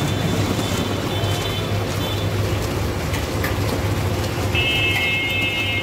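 Steady low electrical hum of the ice cream roller machine's motor under busy street noise. High-pitched tones sound twice over it, once about a second in and again for the last second or so.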